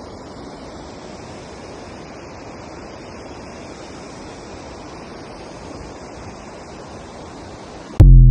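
Steady rushing outdoor noise, even and unbroken for about eight seconds. Right at the end it is cut by a very loud, sudden musical sting with ringing tones.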